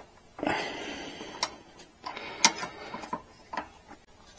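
Hand work on small metal parts: about four sharp clicks, the loudest about two and a half seconds in, and two stretches of scraping and rustling lasting about a second each, starting about half a second and about two seconds in.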